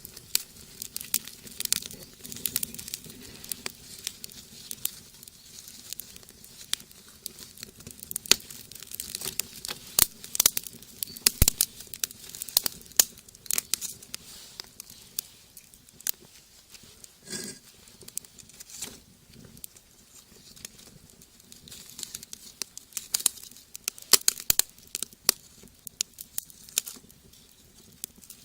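Wood fire in a rocket stove crackling, with irregular sharp pops.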